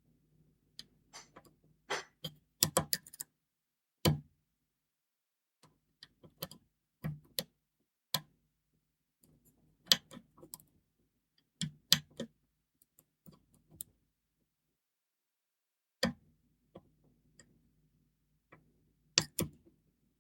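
Irregular small metallic clicks and taps of a pick and tensioner working the levers inside a Belfry No. 67 four-lever padlock, in scattered groups with short pauses between.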